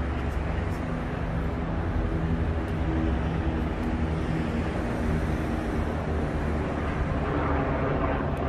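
Street traffic: a steady low rumble with a vehicle engine hum, and a louder rush near the end.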